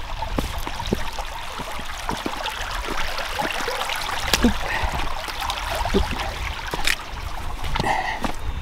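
Small creek running and trickling over stones, with irregular footsteps on rock and wet mud as someone crosses it.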